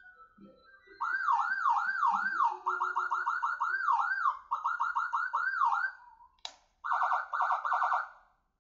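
Locally made Whelen-style electronic siren sounding its 'Obama' tone, starting about a second in. It plays rising-and-falling sweeps that switch back and forth between a slower wail and a much faster yelp. Near the end, after a sharp click, comes a short stretch of rapid warbling.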